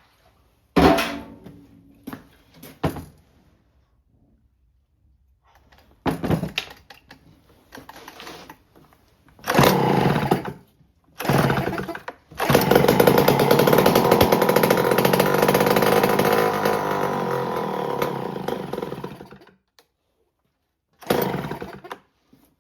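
Homelite C5 two-stroke chainsaw being pull-started. It gives several short pops, then fires and runs steadily for about seven seconds before dying, and catches briefly once more near the end. It runs only on a shot of fuel fed in by hand and will not keep going on its own.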